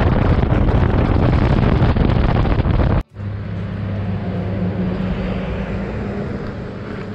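Wind rushing over an action camera's microphone on a moving motorcycle, heavy and steady. About three seconds in it cuts off abruptly. After that the motorcycle's engine is heard running at a steady pitch, with much less wind.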